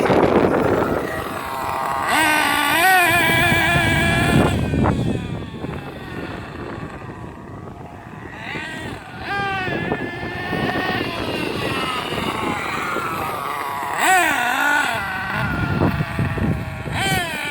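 Losi 8IGHT-T radio-controlled truggy driving, its motor revving up and falling back in several bursts.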